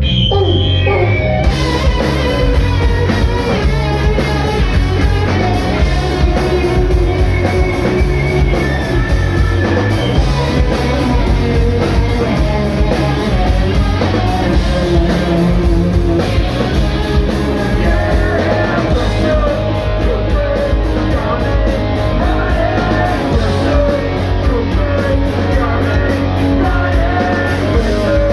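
A punk rock band playing live: electric guitar, bass guitar and drum kit with sung vocals, the full band coming in right at the start and playing loud and steady.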